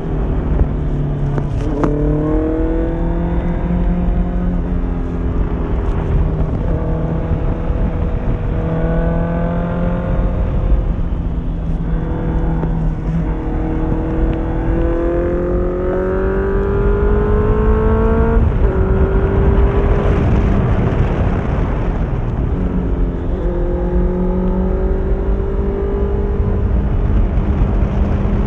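Honda CBR650F's inline-four engine through an Akrapovic exhaust, accelerating hard through the gears. The pitch climbs and then drops sharply at each upshift, about six times, with one long pull in the middle before a shift.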